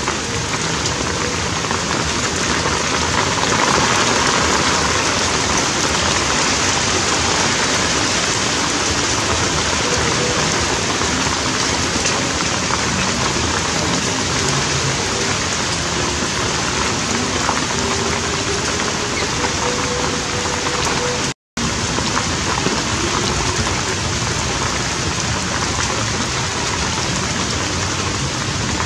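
Steady rain falling, with a split-second drop-out to silence about two-thirds of the way through.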